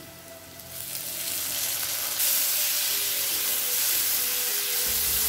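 Chopped tomato and onions frying in hot oil in a kadai, a steady sizzle that builds about a second in and gets louder a little after two seconds, while being stirred with a spoon.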